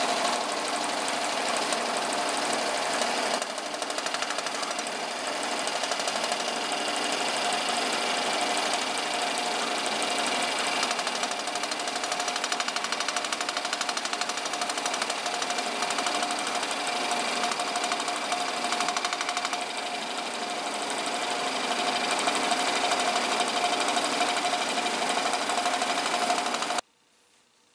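Stationary scroll saw running, its reciprocating blade cutting through thick yellow birch hardwood with a steady buzzing rattle. It stops abruptly about a second before the end.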